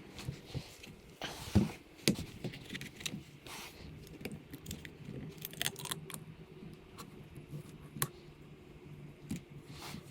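Scattered light clinks, taps and knocks of small tools and parts being handled, the loudest about a second and a half in, over a faint steady hum.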